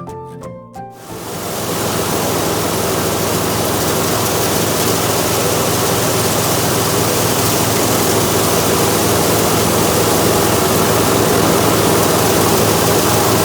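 An engine-driven rice-farming machine running steadily, a loud even noise over a low hum, building up about a second in as piano music fades out.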